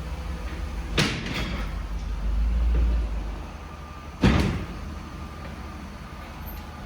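Low rumble of the BMW 840Ci, with two sharp knocks about three seconds apart, the second one louder.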